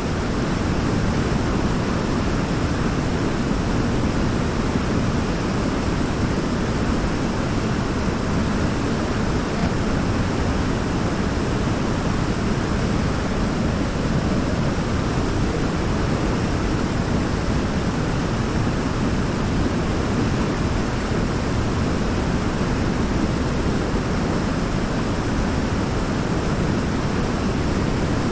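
River water pouring over a large rock in a small waterfall, a steady, loud rushing with a deep, full tone and no change throughout.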